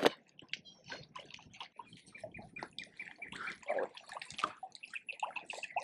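Faint water lapping and dripping against a dock, with scattered light irregular clicks.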